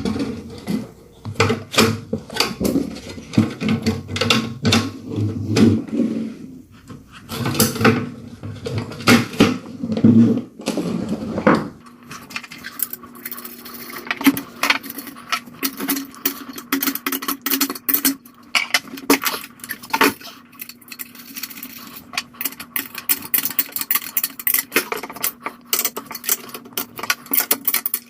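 Irregular metallic clicks and clinks of small hardware (washers, axle nuts and a wrench) being handled and fitted as a scooter wheel goes back onto its fork. A faint steady hum joins partway through.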